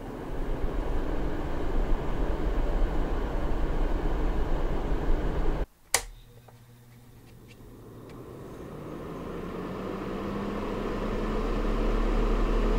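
Small ceramic space heaters' fans running: first the Honeywell UberHeat's fan with a steady rush of air, then a click about six seconds in, after which the Brightown personal heater's fan noise builds up gradually with a low hum that rises slightly in pitch.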